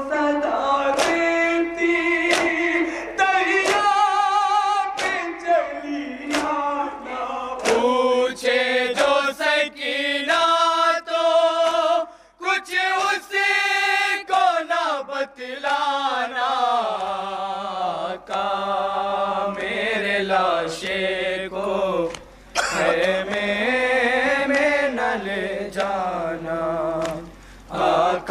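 A noha, a Shia lament, sung without instruments by a lead reciter with a chorus of men joining in. It runs over a steady beat of slaps from ritual chest-beating (matam).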